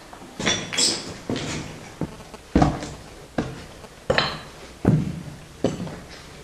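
Footsteps crossing rubble and broken tiles on a concrete floor: about eight uneven steps, each a sharp scuff or crunch with a short ring of reverberation from the bare rooms.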